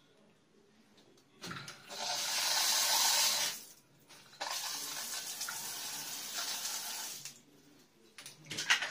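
Water running through a newly installed exposed shower mixer and hand shower as it is turned on to test the new pipe connections: a loud hiss of water for about two seconds, a brief stop, then a quieter steady flow for about three seconds, with a few light knocks near the end.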